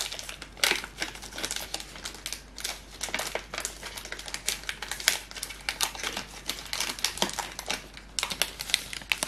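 Plastic chocolate-bar wrapper crinkling and crackling in the hands as it is worked open: a dense, uneven run of small crackles.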